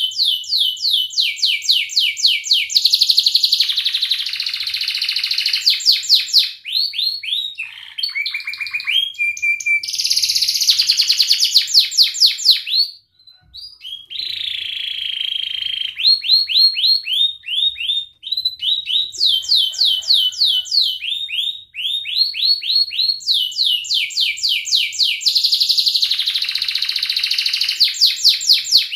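Domestic canary singing a continuous song of phrases, each a rapid run of repeated falling whistled notes or a fast trill, switching from one phrase to the next; the song breaks off briefly about halfway through.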